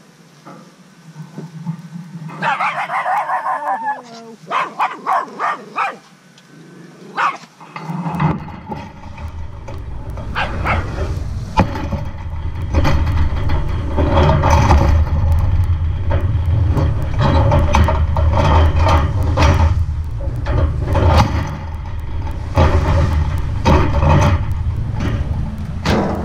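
A dog barking, first a drawn-out bark, then a quick run of four or five barks. From about eight seconds in, a loud steady low rumble with rattling knocks takes over.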